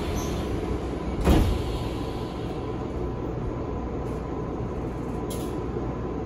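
Tokyu 5000 series train's sliding passenger doors closing with a single loud thud about a second in, over the steady hum of the stopped train's equipment. A short hiss follows near the end.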